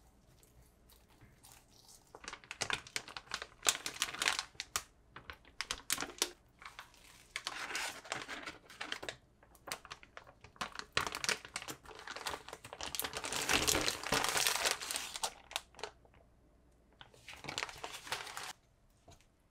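Clear plastic bag and plastic film wrapping crinkling in irregular bursts as they are handled. It starts about two seconds in and stops shortly before the end.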